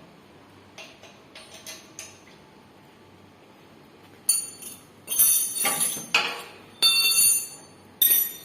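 Metal hand tools and parts clinking and knocking together: a few light clicks, then from about halfway a series of sharp, ringing metal strikes.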